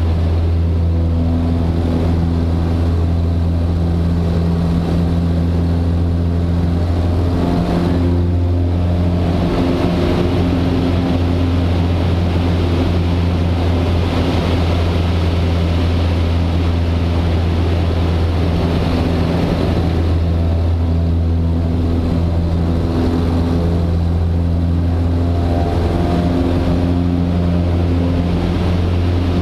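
Super Decathlon's four-cylinder Lycoming engine and propeller droning steadily, heard from inside the cockpit. The engine note shifts briefly about eight seconds in and again after about twenty seconds.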